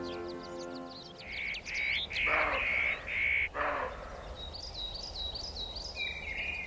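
Birds calling: a few loud, harsh, caw-like calls over steady high chirping of small birds. Background music fades out about a second in.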